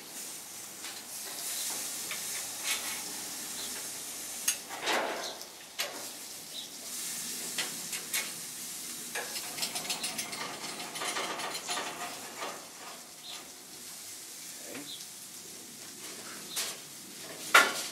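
Salmon sizzling on a gas grill's grates, with a metal spatula scraping and clicking against the grates as the fish is worked and turned. A sharp clack near the end is the loudest sound.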